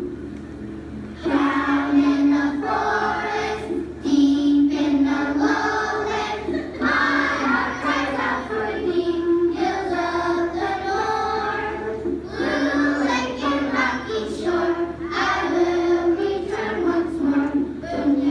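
A group of young children singing a song together, in phrases with held notes, starting about a second in.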